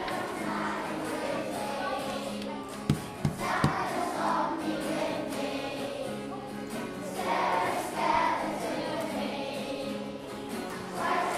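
A children's choir singing a Halloween song in a minor key over musical accompaniment. About three seconds in there are three brief clicks.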